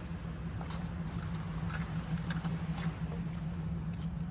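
Small clicks and scrapes of a plastic fork picking at noodles in a styrofoam take-out box, with some chewing, over a steady low hum.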